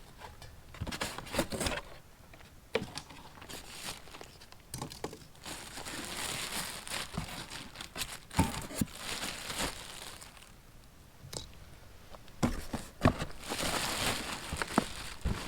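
Packaging being pulled off and handled: crinkling, tearing plastic wrap with scattered clicks and knocks, in runs of rustling a few seconds long.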